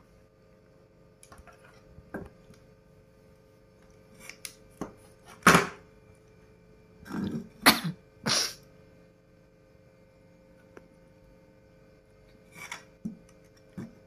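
Handling and desoldering noises on a computer power-supply circuit board worked with a soldering gun: scattered clicks and knocks, and a few short, loud rustling bursts around the middle, over a faint steady electrical hum.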